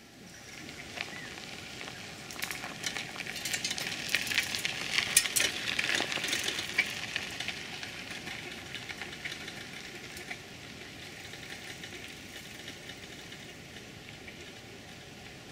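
Bicycle tyres crackling over dry leaves and gravel on a dirt road: a crackling hiss that swells over the first few seconds, then eases into a quieter, steadier hiss.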